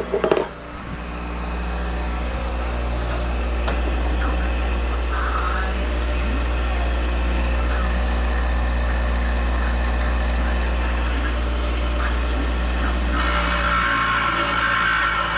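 A motor runs steadily with a low drone. Near the end a higher steady whine joins it for about two seconds.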